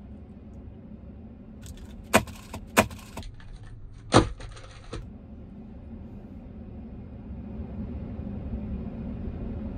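Crinkly plastic protein-bar wrapper being handled, rustling with a few sharp crackles between about two and five seconds in. Under it runs a steady low hum in the truck cab.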